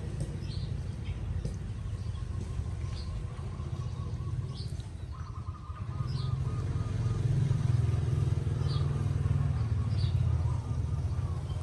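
A motor vehicle engine running nearby, a steady low rumble that grows louder about six seconds in and eases off near the end, with a few short bird chirps over it.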